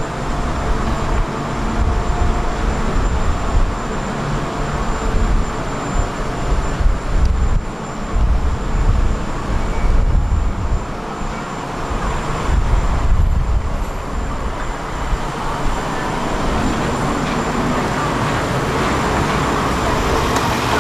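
Street traffic noise at a tram stop: trams and cars passing on a city street, a steady rumbling noise throughout.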